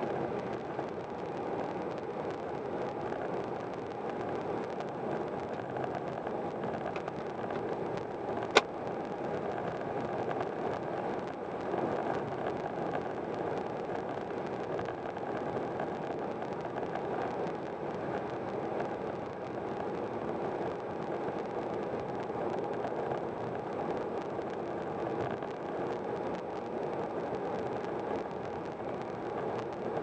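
Car driving at highway speed: steady tyre and road noise with engine hum. A single sharp click about nine seconds in.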